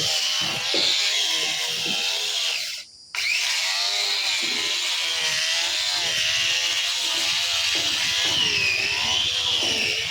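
Handheld grinder running steadily against a wooden window frame, sanding it clean. Its whine wavers in pitch as it is worked over the wood, and the sound drops out briefly about three seconds in.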